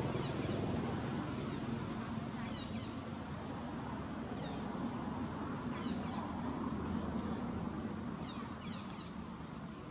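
Short, high, falling animal calls, a few at a time every second or two, over a steady low rumble.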